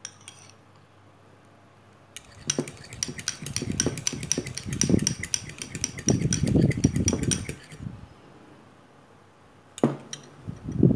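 A fork whipping dalgona coffee by hand in a ceramic bowl: its tines click rapidly against the bowl, about four clicks a second, over a wet swishing of the thickening mixture. The whipping starts about two seconds in, stops a few seconds before the end, and starts again briefly near the end.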